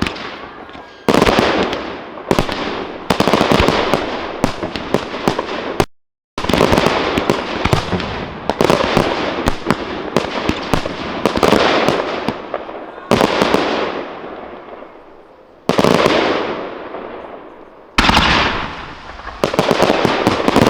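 Aerial fireworks display: bangs going off in quick clusters, each cluster fading out in a long decaying rumble before the next set of bursts. The sound cuts out completely for a moment about six seconds in.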